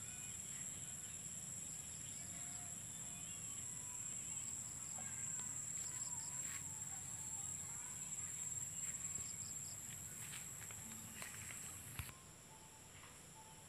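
Steady high-pitched drone of insects over a low rumble of wind and handling noise, with a few faint chirps. A click comes about twelve seconds in, and then everything is quieter.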